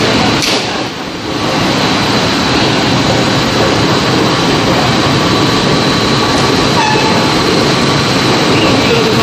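PP/PE film pelletizing line running: a loud, steady machinery din from the film compactor and extruder, with a faint high whine over it. The noise dips briefly about a second in.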